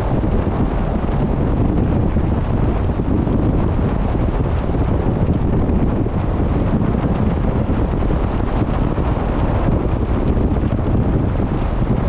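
Steady wind rumbling on the microphone, with the rush of sea water along a moving boat mixed in.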